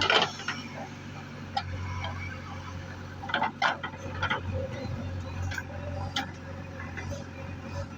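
Diesel engine of a backhoe loader or tractor running steadily at low revs, with a few sharp knocks and clatters: a loud one at the start and a cluster around three and a half to four seconds in.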